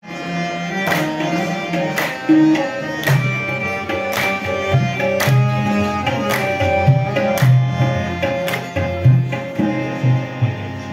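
Tabla and harmonium playing a qawwali instrumental passage. Sharp drum strokes fall about once a second over deep bending bass-drum tones and held harmonium notes.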